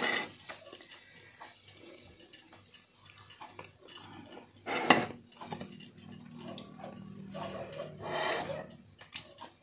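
Fork clinking and scraping on a ceramic plate of food, with a sharp clink about five seconds in.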